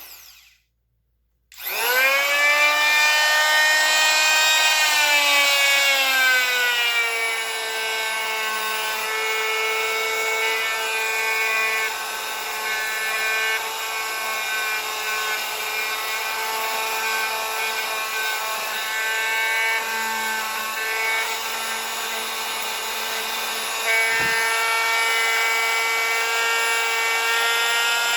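One-inch pneumatic impact wrench running free with no load: a short burst, a pause of about a second, then a steady high whine that rises in pitch as it spins up, settles a little lower and holds. A single knock about 24 seconds in, after which it runs slightly louder.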